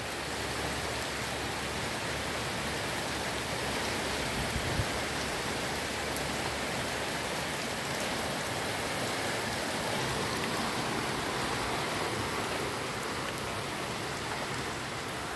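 Steady rain falling on a wet paved street, an even hiss that holds level throughout.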